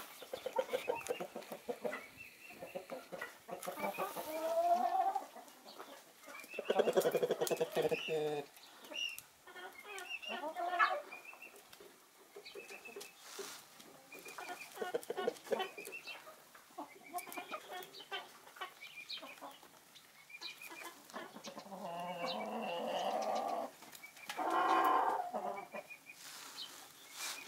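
A small flock of chickens clucking and calling, with a few longer, louder drawn-out calls: one about seven seconds in and two more near the end.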